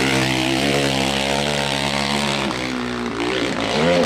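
Dirt bike engine running hard at high revs, held steady at first; near the end the revs rise and fall several times as the bike climbs a steep rocky slope under load.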